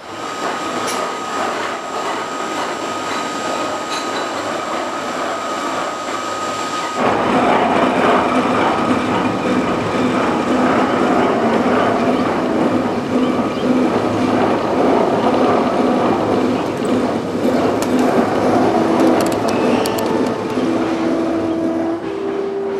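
Coal mine aerial ropeway machinery running: the big rope wheel and cables turning with a steady mechanical whine and clatter. About seven seconds in it turns louder and rougher, and near the end drawn-out metallic tones step up in pitch.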